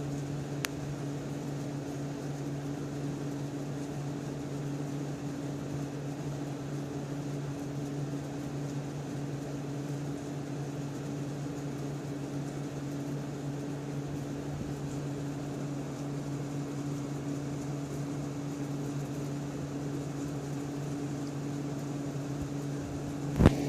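Steady machine hum: a constant low drone over an even rushing noise, with a faint click about a second in and a loud knock near the end.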